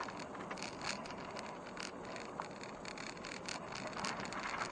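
Car driving along a rural road, heard from inside the cabin: steady road noise with frequent small rattles and creaks from the car's interior.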